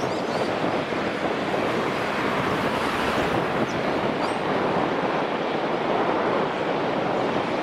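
Jet engines of an Airbus A380, its four Rolls-Royce Trent 900s, running at taxi thrust: a steady rushing noise with no sudden changes.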